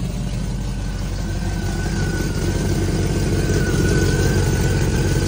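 Bored-out Pontiac 455 V8 idling shortly after a cold start, steady and getting louder about two seconds in. A thin steady high whine runs over the idle from then on.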